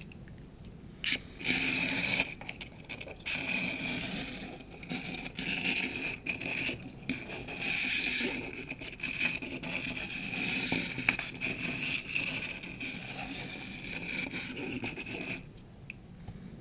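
Clockwork motor of a wind-up Elizabeth vintage quarry truck toy running after being wound: a steady whirring, scraping gear noise that starts about a second in and runs down to a stop near the end.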